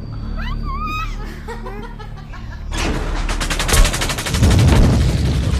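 A few short warbling, pitched calls, then about three seconds in a rapid, sustained burst of gunfire sound effect, many shots a second, with a deep boom rumbling under it.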